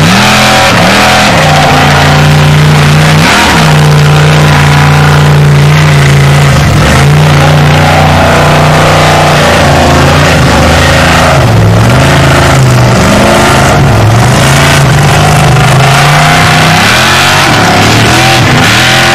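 Formula Offroad hill-climb buggy's engine run hard at high revs under full load as it climbs a steep sand slope. Its pitch dips and rises again several times in the second half.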